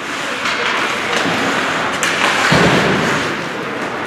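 Steady crowd noise echoing in a large hall, broken by several dull thuds, the heaviest about two and a half seconds in.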